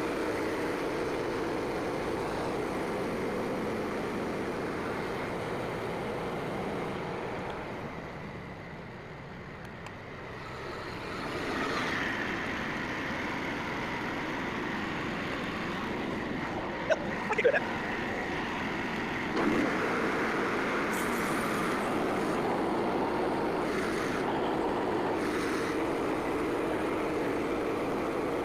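Small gasoline engine of a portable band sawmill running steadily. It drops quieter for a few seconds around the middle and then comes back up, with a couple of short knocks a little later.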